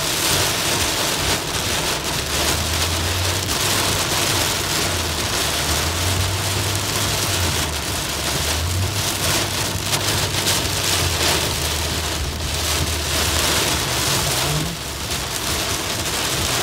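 Torrential rain pelting the windshield and roof of a car, heard from inside the cabin as a dense, steady hiss over a low rumble of the car on the road.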